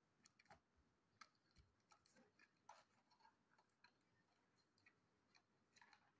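Near silence, with faint, scattered clicks, taps and light scrapes of cardboard toy-car packaging being handled.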